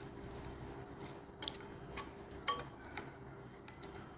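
A wire whisk stirring yogurt in a bowl, its wires giving a few faint, irregular clicks against the bowl over a faint steady hum.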